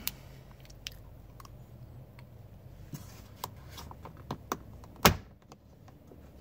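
Scattered small plastic clicks and handling noises as fingers work the plastic clip on the 2011 Hyundai Sonata's glove-box stopper arm, then one sharp loud snap about five seconds in as the clip pops free.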